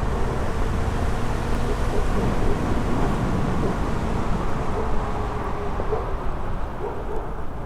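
Begode Blitz electric unicycle being ridden: steady wind rumble on the microphone and tyre-on-pavement noise, with a faint wavering whine underneath.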